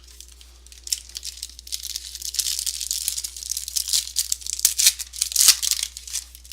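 Trading-card pack wrapper being torn open and crinkled by hand: a dense, crackly run of tearing and rustling that builds from about a second in and peaks near the end.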